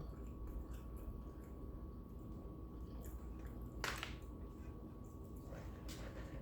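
Faint wet chewing and mouth smacking from someone eating a fried chicken sandwich, with one sharper smack about four seconds in, over a low steady hum.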